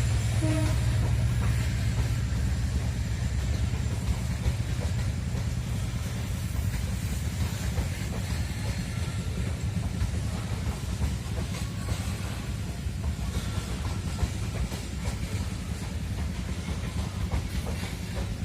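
Wagons of a long Babaranjang coal freight train rolling past, a steady low rumble with the rapid clatter of wheels over the rails, easing slightly in loudness.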